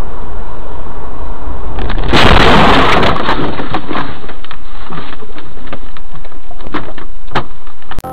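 Dashcam audio of a car crash: steady road and engine noise, then about two seconds in a loud smash as the car strikes a roadside pole. Scattered sharp cracks and clatters follow for several seconds.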